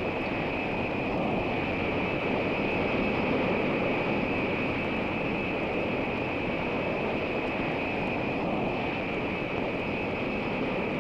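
B-52 mothership's jet engines running at taxi power, a steady rushing noise with a high whine over it.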